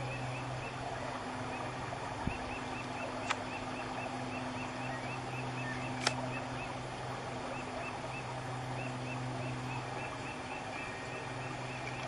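Buddhist chanting (yeombul): a low, steady male voice held in long phrases with short breaks, over a moktak (wooden fish) struck in a quick, even beat of about four knocks a second.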